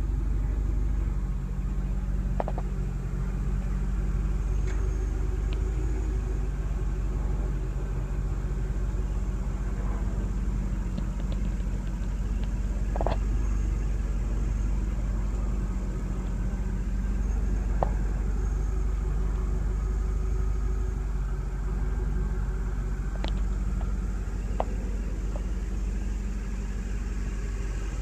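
2000 Chevrolet Corvette's 5.7-litre LS1 V8 idling steadily through an aftermarket Corsa exhaust, an even low rumble. A few faint clicks come and go over it.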